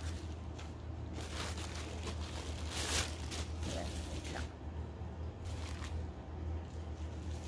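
Parcel packaging being torn open and handled, irregular rustling and crinkling with a louder rip about three seconds in, over a steady low hum.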